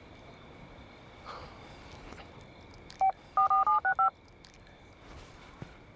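Touch-tone phone keypad dialing: one short DTMF beep about three seconds in, then a quick run of about five more, each a short two-note tone.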